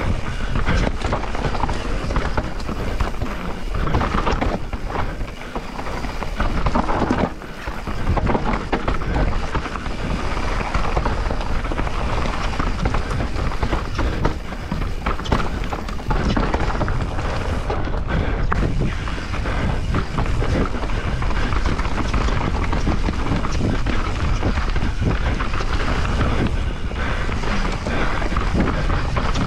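Transition Spire 29er enduro mountain bike ridden hard down a loose, dry trail: tyres on dirt and the bike knocking and rattling over rough ground, with wind rushing over the microphone.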